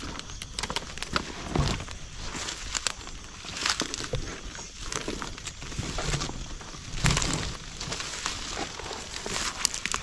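Footsteps and rustling through grass and brush, a steady run of irregular swishes and small crackles.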